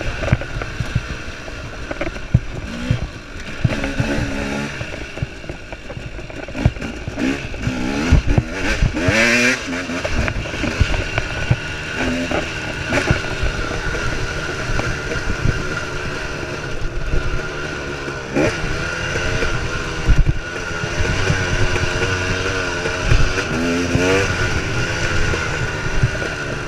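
KTM 300 XC's single-cylinder two-stroke engine, heard from on the bike, revving up and down again and again under hard riding. Frequent knocks and clatter come from the bike over rough ground.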